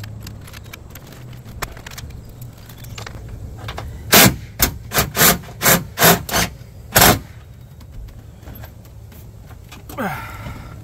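A quick run of about eight loud knocks: the heavy sunroof assembly banging against the Jeep Grand Cherokee ZJ's roof opening as it is pushed up into place. A short falling sound follows near the end.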